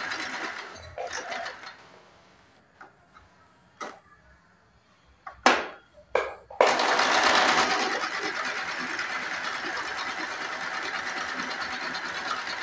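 Small electric sewing machine stitching a straight seam along a fabric tuck: it runs steadily, stops after about a second and a half, and after a few light clicks and two sharp knocks it starts again at about six and a half seconds and runs steadily on.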